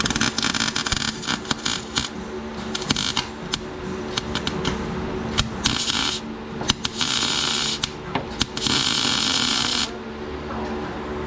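Electric arc welding on a mower deck's steel: the arc crackles and sputters in five short welds of about half a second to two seconds each, with a steady low hum between them.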